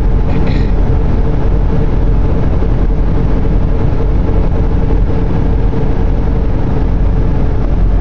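Steady road and engine noise inside a car's cabin while cruising on a highway, low and even, with a faint steady hum.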